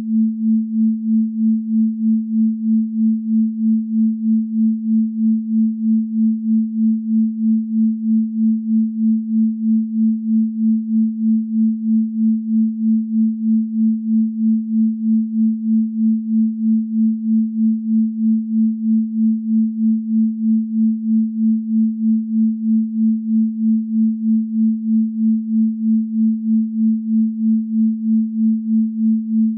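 Pure sine tone at 221.23 Hz, the 'Venus frequency' (the A below middle C), held steady in pitch with its loudness pulsing evenly two or three times a second.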